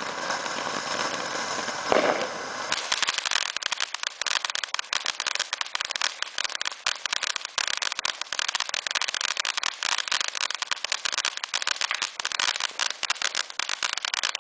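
Barrel firework fountain burning, spraying sparks with a steady hiss and one loud burst about two seconds in. From about three seconds on it gives a dense, rapid crackling from its crackling stars.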